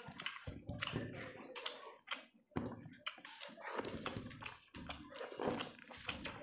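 Wet, irregular squelching and smacking of bare hands mashing rice into chicken curry on steel plates, together with open-mouthed chewing.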